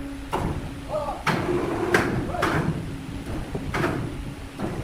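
Sharp knocks and clatter of timber being handled, about five in under four seconds, over a steady low machine hum.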